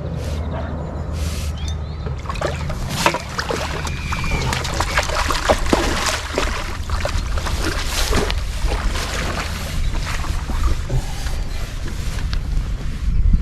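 Irregular splashing of water with small clicks, over a steady low rumble.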